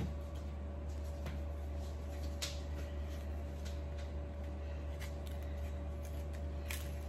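A stick of butter's paper wrapper being opened by hand: scattered light crinkles and clicks over a steady low hum.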